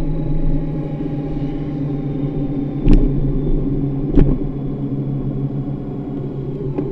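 Honda Gold Wing motorcycle running steadily at road speed, with a constant engine hum and road noise. There are two sharp knocks about a second and a half apart near the middle.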